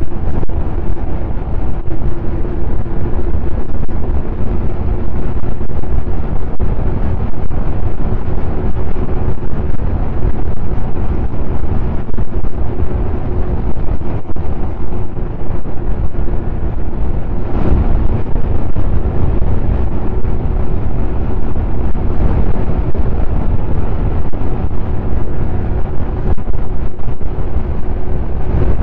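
Snowmobile engine running at a steady speed while riding, with a heavy rumble of wind on the microphone.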